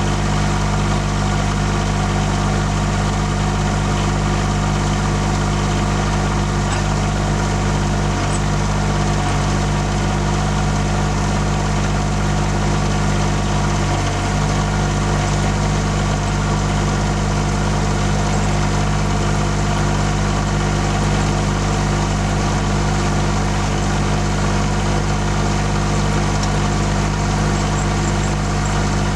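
Cub Cadet 1772 garden tractor's diesel engine idling steadily.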